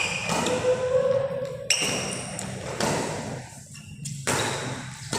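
About four sharp thuds, each followed by a short high ringing ping, echoing in a large hall.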